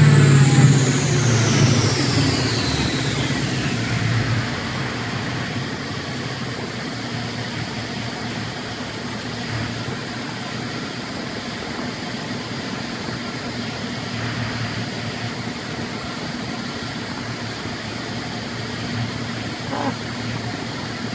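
Mercedes-Benz C63 AMG's 6.2-litre V8, fitted with long-tube headers and a 3-inch custom cat-back exhaust, coasting down after a full-throttle dyno pull: a high whine falls steadily in pitch and the engine sound fades over the first few seconds, then the engine settles to a steady idle.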